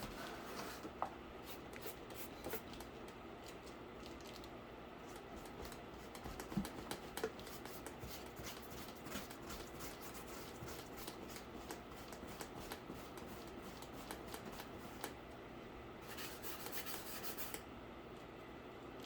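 Faint scratchy rubbing strokes with scattered light clicks, a paintbrush working paint over a cardboard PC case; the strokes thicken into a denser scratching near the end.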